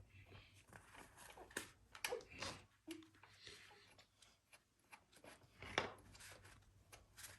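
Faint, scattered clicks and rubbing of bicycle parts being handled and fitted by hand, with the loudest click about six seconds in.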